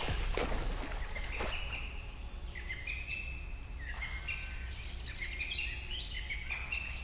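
River water splashing around a coracle moving across the river, with a few sharp splashes in the first second and a half. From about two and a half seconds in come repeated runs of short, rising, stepped chirps.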